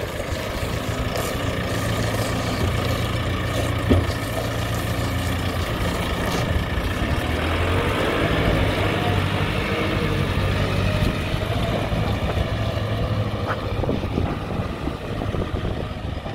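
JCB 535-95 telehandler's diesel engine running steadily, with a single sharp knock about four seconds in.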